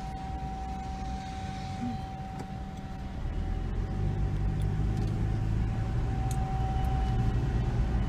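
Car cabin noise in slow traffic: engine and road rumble that grows louder about three seconds in, with a thin steady whine underneath throughout.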